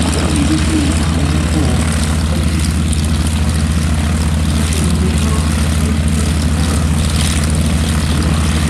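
Boeing Stearman wingwalking biplane's piston engine idling steadily on the ground, a constant low drone.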